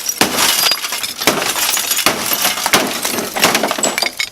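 An old television's casing being broken and pried apart: an irregular run of cracks and crunches, with clinks of breaking glass.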